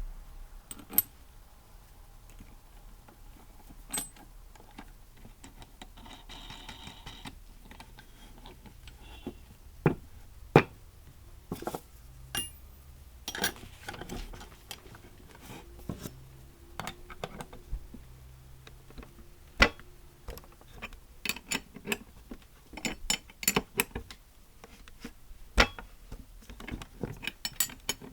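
Metal clinks and taps of steel tools and parts being handled while the bearing is pressed in with a bolt, nut and square washer, the clicks coming closer together near the end.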